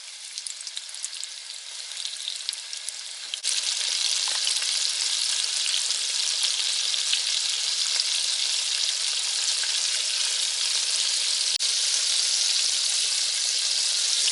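Halloumi fries in a cornflake-and-flour coating frying in hot oil, a crackling sizzle. About three and a half seconds in it jumps suddenly to a louder, dense, steady sizzle.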